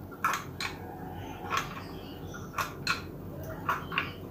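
Hand-lever stainless-steel sev press clicking and clacking as its handle is squeezed again and again to push besan dough out through the die. About seven sharp metallic clicks, irregularly spaced.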